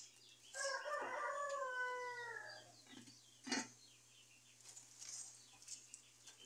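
A rooster crowing once: one long call of about two seconds that sags slightly in pitch toward its end. About a second later comes a short sharp sound, the loudest moment.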